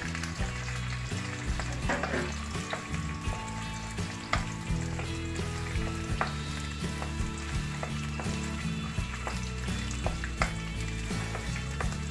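Sliced carrots, onion and garlic sizzling in hot oil in a wok, stirred with a wooden spatula that knocks and scrapes against the pan in sharp little clicks. A low hum runs underneath, shifting in pitch now and then.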